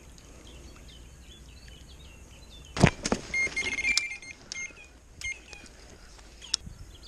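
A sharp click about three seconds in, followed by an electronic bite alarm giving a quick run of short, steady, high-pitched beeps as the rod and line are handled on the rod rest, with a few more beeps a second later. Faint bird chirps sound in the first couple of seconds.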